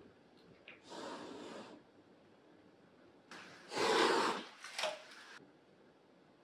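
Domestic cat hissing in three breathy bursts: one about a second in, a louder and longer one around four seconds in, and a short one just after it. It is a defensive warning hiss at a newcomer.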